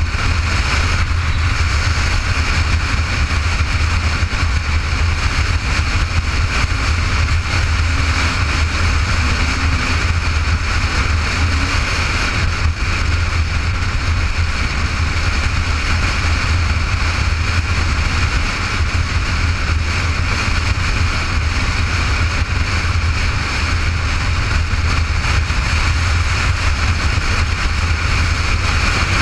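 Motorcycle cruising at steady highway speed: a constant drone of engine and road noise with wind rushing past the camera, unchanging throughout.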